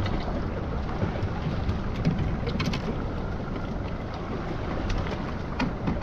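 Steady wind rumble on the microphone over the wash of the sea around a small boat, with a few light clicks.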